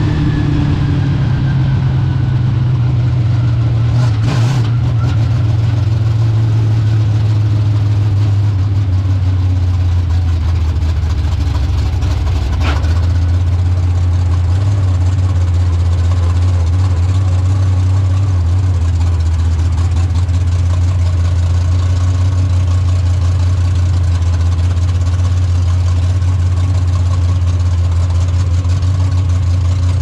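Dirt-track stock car's engine heard from inside the cockpit, dropping from about 2,300 rpm to a steady near-idle around 1,300 rpm. Its pitch falls in the first few seconds, then holds steady.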